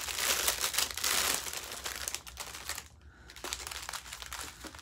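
Clear plastic bag of small diamond-painting drill packets crinkling as it is handled and pulled open. Busiest in the first two seconds, dropping to a brief lull about three seconds in, then lighter crinkles.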